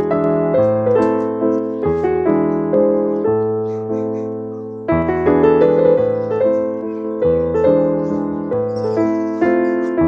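Background piano music: a slow melody over sustained chords, its notes fading out about four seconds in before a new phrase starts about a second later.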